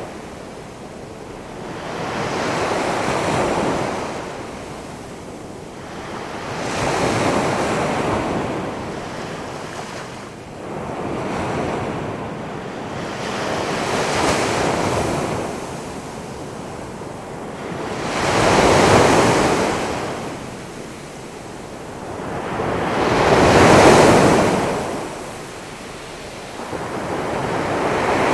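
Ocean surf: big waves rolling in and crashing one after another, each swelling and washing out over a few seconds, with the two loudest breaks about two-thirds of the way through.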